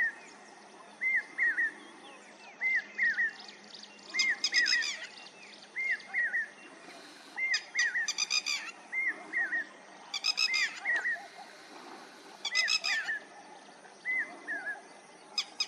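Lapwing calling over and over: short arched notes in twos and threes, with louder, harsher calls breaking in every two to three seconds.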